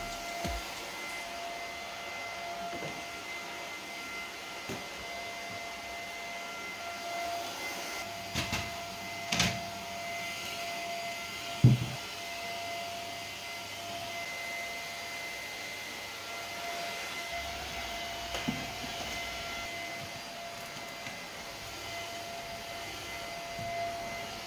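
Corded vacuum cleaner running steadily with a whining hum as its floor nozzle is pushed over a hard stone floor. A few short knocks come through, the loudest about twelve seconds in.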